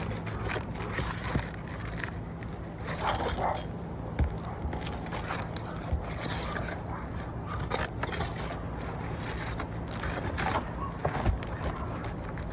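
Scraping and prying on asphalt roof shingles, a run of irregular short scrapes and knocks over a steady low hum.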